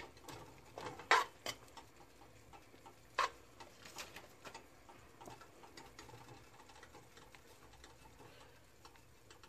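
Metal spoon clinking and scraping against a metal stockpot as a thick sauce is stirred: light irregular ticks, with a few sharper knocks about a second in and again around three seconds.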